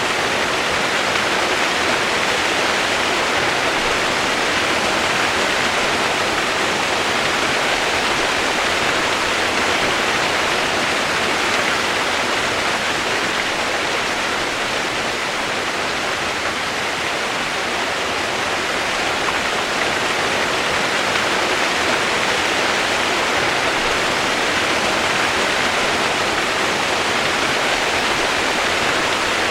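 Steady rain sound used as white noise: an even, unbroken hiss with no single drops standing out.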